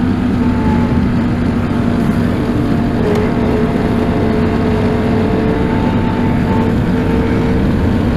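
Tractor engine running steadily at a constant speed, with a faint higher whine that shifts slightly in pitch.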